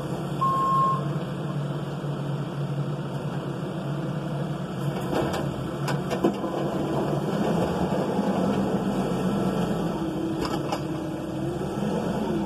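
Case 580ST backhoe loader's diesel engine running steadily as the machine works its front loader bucket into a gravel pile. Its reverse alarm gives one last beep about half a second in, and a few short knocks come around the middle and near the end.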